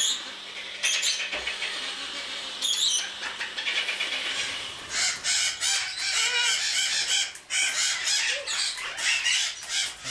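Juvenile Congo African grey parrots calling with many short, high squeals and squawks, a few at first and then crowding together from about halfway: the begging calls of weaning chicks being offered food.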